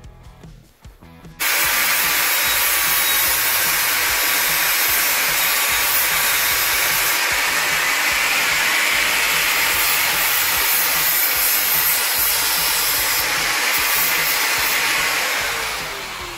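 Angle grinder switched on about a second and a half in, grinding down a rough-cut parking-brake bracket with a steady, loud grinding noise. Near the end it is released and the disc spins down, its pitch falling.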